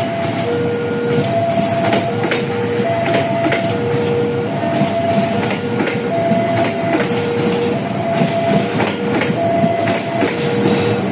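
Passenger train rolling past, its wheels clicking irregularly over the rail joints above a steady rumble. Through it an electronic warning signal sounds, alternating evenly between a higher and a lower tone, each held a little under a second.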